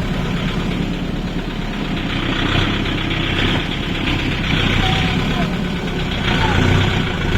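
Diesel farm machinery engine running steadily, with voices in the background.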